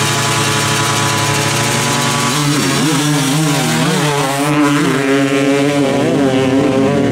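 Two-stroke 250 dirt bikes held at steady high revs on the start line, then launching and accelerating away, the engine pitch climbing and dropping repeatedly through the gear shifts from about two and a half seconds in.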